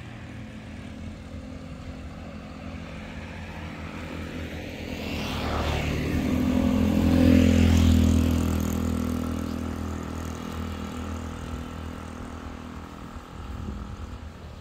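A motor vehicle passing by: its engine hum swells to its loudest about halfway through and then slowly fades away.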